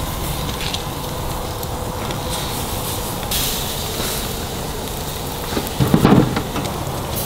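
Oysters in the half shell sizzling on a charcoal grill, a steady hiss. About six seconds in there is a brief louder bump or rustle.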